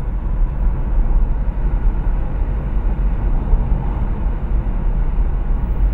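Steady rumble of a car driving at speed, heard from inside the cabin: engine and road noise, heaviest in the low end.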